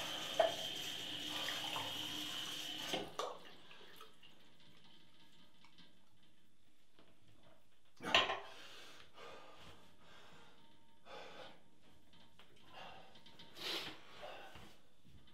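Bathroom washbasin tap running into a glass, a steady hiss that is turned off about three seconds in. After that it is quiet except for a few short knocks and rustles of handling, the loudest about eight seconds in.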